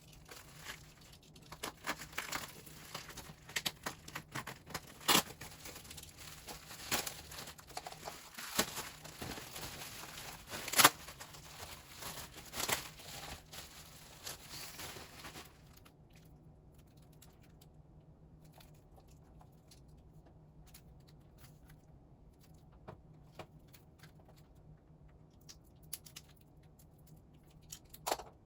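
K-pop album packaging being unwrapped by hand: a dense run of crinkling and tearing for about fifteen seconds, then only a few soft scattered clicks and taps.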